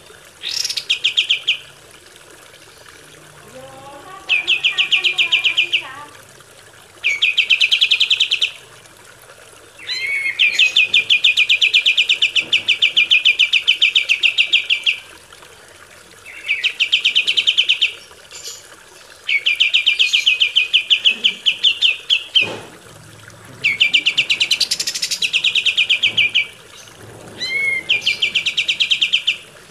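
Kapas tembak songbird singing a fast, evenly pulsed trill, a rapid rattle of high notes delivered in phrases of one to five seconds with short pauses between, about nine phrases in all.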